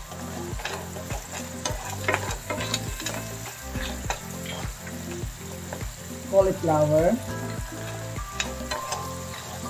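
Clams and carrots in sauce sizzling in a pan while a wooden spatula stirs them, with frequent short scrapes and clicks of the spatula against the pan.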